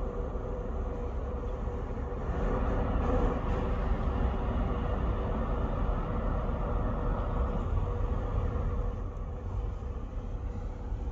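A Corsica Ferries passenger ferry's engines heard across the water: a steady low rumble with a constant hum, swelling a little about two seconds in and easing slightly near the end.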